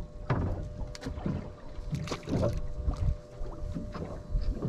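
Fishing boat at sea: irregular splashes and knocks of water against the hull over a low rumble, with a faint steady hum underneath.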